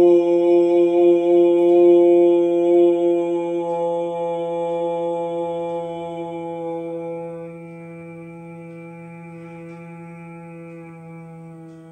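A man's voice holding the long humming "mmm" of an Om chant with the mouth closed, on one steady low pitch. About seven seconds in it drops to a quieter, duller hum and keeps fading.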